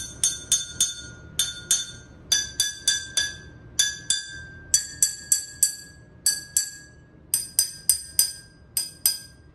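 A metal spoon tapping drinking glasses filled to different water levels, each glass ringing at its own pitch. The taps come in quick runs, about four and then two at a time, and the ringing pitch steps up a little from run to run, because each glass holds a different amount of water.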